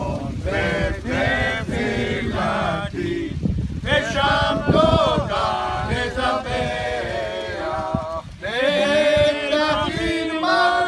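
A group of grandfathers and children singing a song together, their voices mixed.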